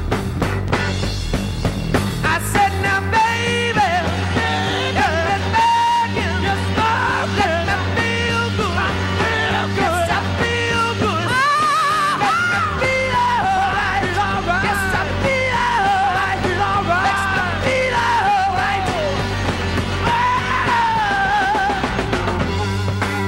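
A heavy rock power trio plays live: a driving bass line, drums and distorted electric guitar. Over the top are loud, wordless wailing vocals that slide and bend in pitch, starting a couple of seconds in and dropping out near the end.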